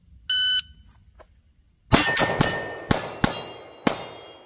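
A shot timer beeps once, then a pistol fires six shots in a three, two, one rhythm: three quick shots, a pair, then a single. Steel targets ring after the hits.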